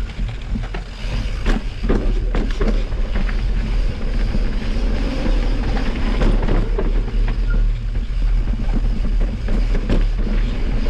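Mountain bike riding down a rough trail: a steady low rumble of wind on the microphone, with repeated clatter and knocks from the bike over bumps and rocks.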